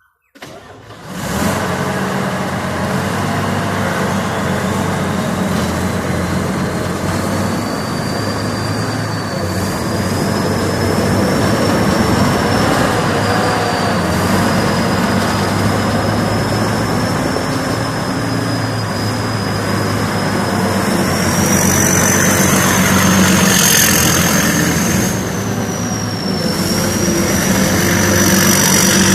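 Combine harvester running, its Hino JO8C turbocharged diesel engine going steadily, with a thin high whine that climbs in pitch. The sound starts abruptly about half a second in and grows a little louder after about 20 seconds.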